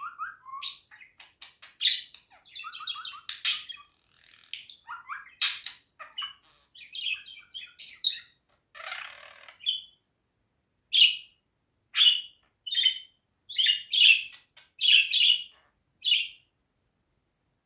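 Budgerigar chattering: a dense run of chirps, clicks and short warbled notes, then from about halfway a series of separate sharp chirps roughly one every half second to a second.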